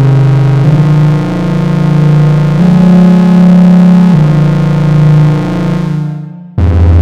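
Arturia MiniBrute 2 analog synthesizer playing a monophonic patch as a slow line of long held notes. The sound dies away about six seconds in, and a lower note then starts.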